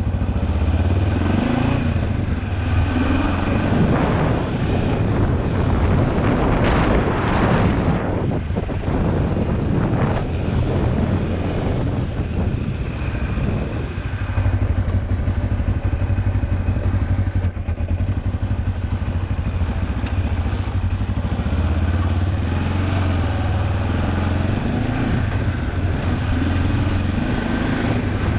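Kawasaki KLE 400 parallel-twin engine running as the motorcycle is ridden, its revs rising and falling. A couple of brief rushes of noise come about a quarter and a third of the way through.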